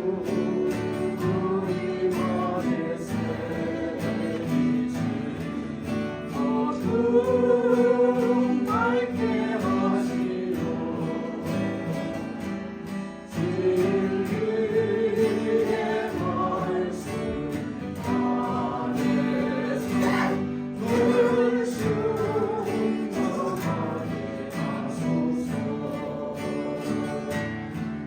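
A small vocal ensemble singing a Korean gospel hymn in harmony, accompanied by acoustic guitars.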